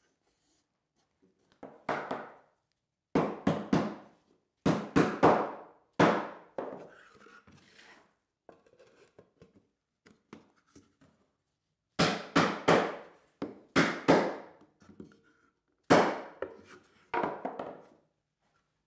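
Wooden tote parts knocking together and against a wooden workbench as tabs are fitted into slots: clusters of sharp wooden knocks, several in quick succession, with a quieter stretch of small handling noises in the middle.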